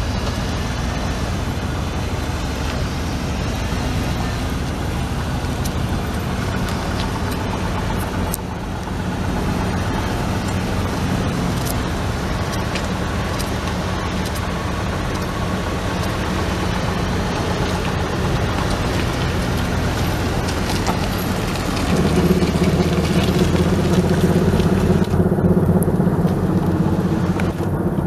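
2001 Chevrolet Silverado 3500's 6.0-litre gas V8 idling steadily. About 22 seconds in, the engine sound gets louder and fuller at the same pitch.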